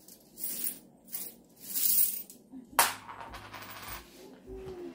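A small bag of quarters being handled, the coins jingling and clinking in short bursts, with one sharp clink a little under three seconds in.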